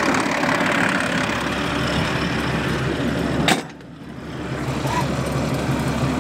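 Tractor diesel engine running steadily under load while pulling a plough. About three and a half seconds in there is a sharp knock, and the sound drops away, muffled, for about a second before returning.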